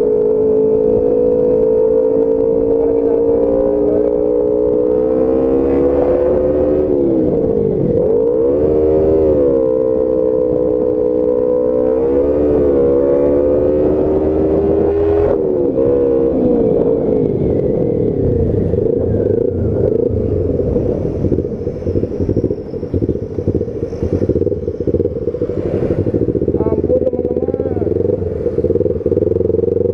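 Kawasaki Ninja 250 with an aftermarket Hedon exhaust being ridden: the engine note climbs and drops several times in the first half as the throttle is opened and closed, then runs more evenly.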